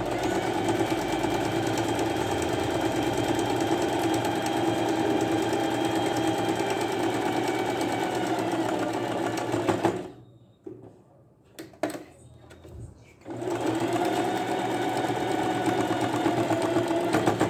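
Domestic sewing machine stitching fabric at a steady speed for about ten seconds, slowing slightly before it stops. A few light clicks follow, then the machine starts again and runs steadily through the last few seconds.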